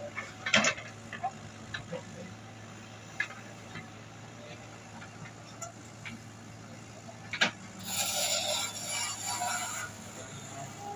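Komatsu WB93R backhoe loader's engine running steadily, low and even, with a few sharp knocks scattered through and a rushing noise lasting about two seconds starting around eight seconds in.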